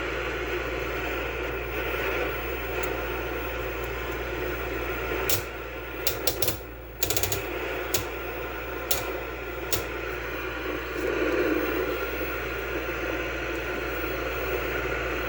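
Black-and-white tube television set running with a steady hum and hiss, and a string of sharp mechanical clicks between about five and ten seconds in.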